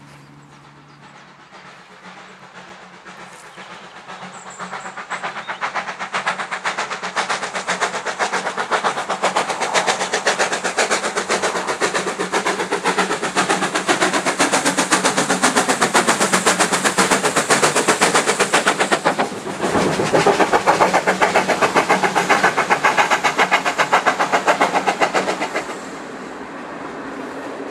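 Steam locomotive working a train, its rapid chuffing exhaust beats growing steadily louder as it approaches and is loudest as it passes close by. Near the end the exhaust falls away, leaving the quieter rumble of the coaches rolling past.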